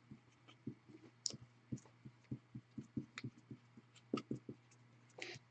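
Faint taps and scratching strokes of a marker pen writing a name on a card sleeve, a few short ticks a second, over a steady low hum.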